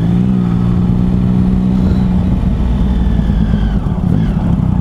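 Motorcycle engine running at low, steady revs while the rider feathers the clutch, holding it half engaged to smooth the power delivery. About halfway through, the steady engine note gives way to a rougher, uneven rumble.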